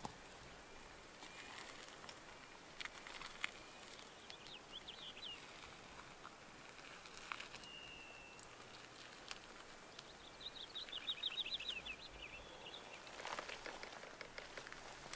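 Faint outdoor ambience with small birds calling: a short trill of quick, falling high notes about five seconds in and a longer trill of about a dozen such notes near eleven seconds, with one brief whistle between them. Scattered sharp clicks and rustles run through it, denser near the end.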